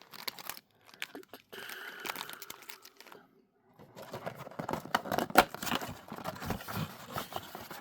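Cardboard trading-card blaster boxes being torn open and the wrapped card packs inside crinkling as they are pulled out. A lighter rustle and a few clicks come first, then a short pause, then a dense crackling through the second half.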